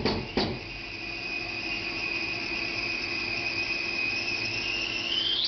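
Toilet tank fill valve: a couple of last knocks of hammering in the first half second, then a steady high-pitched squeal of water through the valve that rises briefly and stops suddenly near the end as the valve shuts off. The noise comes from a broken plastic valve in the toilet.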